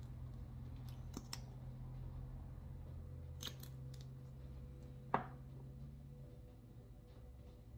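A few short, sharp clicks and snips of small handling, the loudest one about five seconds in, over a low steady hum.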